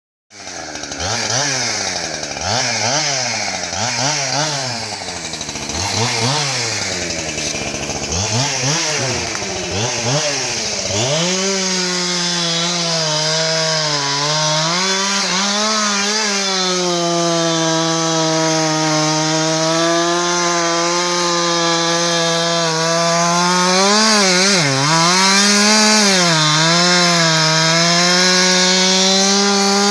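Two-stroke chainsaw revved up and down in short blips for about ten seconds, then held at high revs from about eleven seconds in, with a few brief dips in speed.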